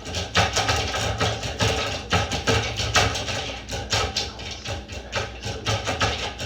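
Background music with a busy percussive beat over a steady bass line.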